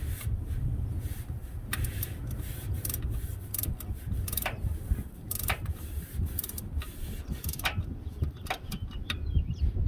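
Hand tools clicking on the bolts of a 1970 GMC pickup's mechanical fuel pump as they are tightened: irregular sharp clicks, some in quick pairs, over a steady low rumble.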